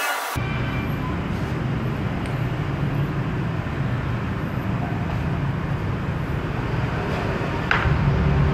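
Steady low rumble of background noise, with a light clink near the end as a bowl is set down on the glass-topped table.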